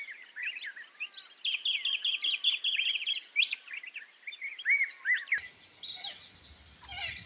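Small birds chirping, with a fast run of short high calls in the middle. About five seconds in the background changes abruptly and a low background rumble sets in under higher chirps.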